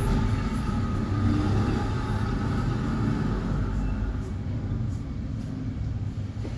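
Steady low rumble of background noise, without speech.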